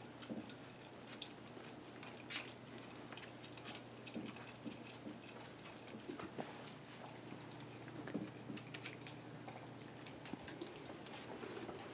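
Dog eating: faint, scattered chewing and clicking sounds.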